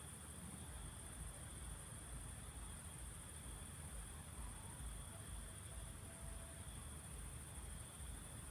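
Steady high-pitched chorus of insects, with a second steady, thinner insect-like note lower down, over a faint continuous low rumble. A brief faint tone appears a little past the middle.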